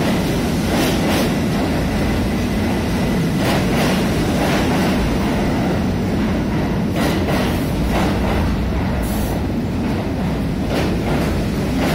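R68 subway train cars rolling past a station platform as the train pulls out, a steady heavy rumble. Sharp wheel clacks come in pairs every second or two.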